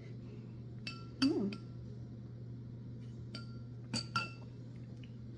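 A drinking glass clinking about five times at uneven intervals, each strike ringing briefly at the same clear pitches.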